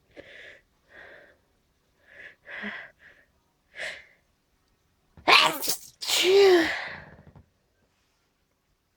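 A person's allergy sneezing fit: several short, catching breaths, then a loud sneeze in two back-to-back bursts about five seconds in, the second voiced and trailing off.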